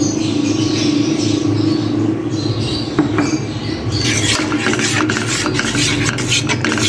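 A metal spoon stirring a steel pot of carrot kheer, with quick clinks and scrapes against the pot starting about four seconds in, over a steady low hum.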